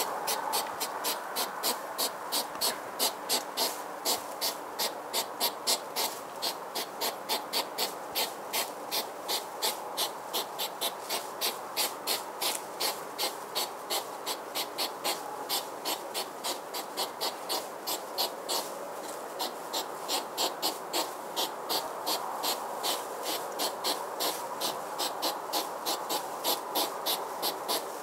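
Insect chirping in a steady rhythm, about three short chirps a second, over a constant hiss.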